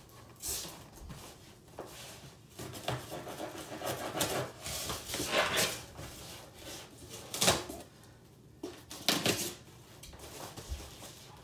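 A large cardboard box and its packing being handled: rustling and scraping as hands work inside the box, with a few short knocks, the sharpest about seven and a half and nine seconds in.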